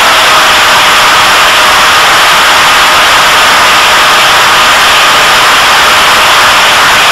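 Electric motor and propeller of an EFX Racer flying wing running steadily in flight, a faint steady tone that drifts slightly lower, buried under loud rushing wind noise picked up on board.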